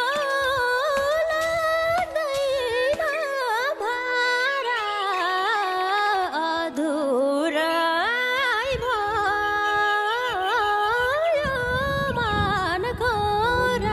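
Background music: a solo voice singing a gliding, ornamented melody over a steady drone. A low rumble comes in under it about eleven seconds in.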